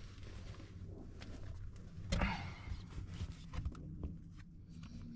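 A sticker being peeled from its backing and handled: soft rustling and light clicks, the loudest rustle about two seconds in, over a low steady hum.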